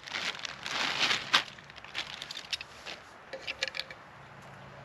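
Handling noise at a camp stove: rustling at first, then a few light metallic clicks and taps as a lid and pans of a Trangia cook set are moved about on the stove.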